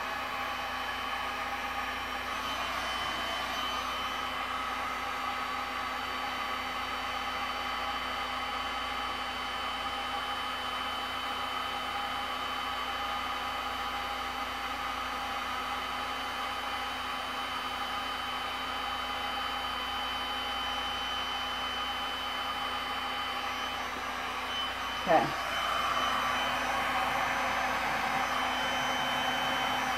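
Heat gun running steadily, an even blowing rush with a constant fan whine, used to heat wet epoxy resin. A single sharp knock comes about 25 seconds in, after which the blowing is a little louder.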